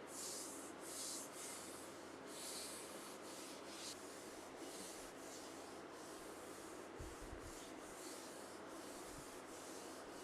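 Faint, repeated rubbing strokes, a series of short swishes about one or two a second over a low hiss, with a brief low thump about seven seconds in.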